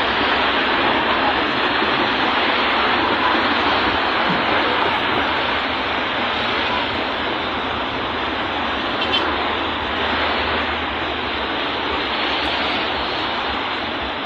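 A steady rushing noise that holds without a break, with no clear pitch or rhythm.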